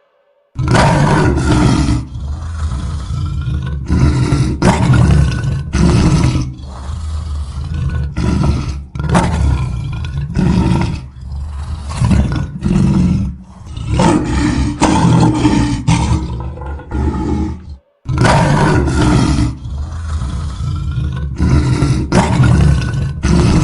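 Lion roaring: a long series of repeated roars, each about a second long, with a brief break about three-quarters of the way through before the roars carry on.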